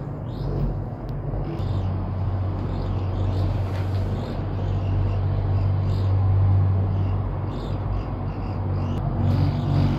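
Steady low rumble and hum inside a cable-car cabin travelling down the line, growing stronger about a second and a half in.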